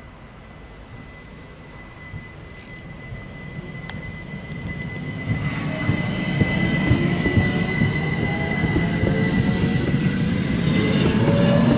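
Rhaetian Railway ABe 8/12 Allegra electric multiple unit rolling past and gathering speed: a steady high whine, then from about halfway a set of motor whines rising in pitch over a growing rumble of wheels on rail.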